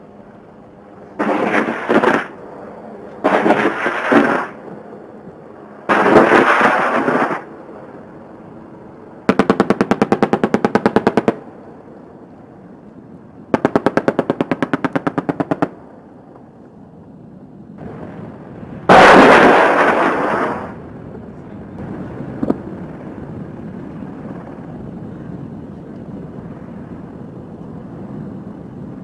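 AH-64 Apache firing: three short rushing blasts of rocket fire, then two bursts of about two seconds each from its 30 mm chain gun, a rapid even hammering of shots. A louder blast follows and dies away over about two seconds.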